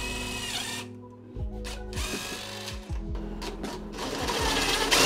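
Cordless DeWalt 20V impact driver spinning a 1/4-inch drill bit through the guides of a Kreg shelf pin jig, drilling shelf pin holes into the cabinet side. The motor runs in several short bursts and winds down between them, louder toward the end.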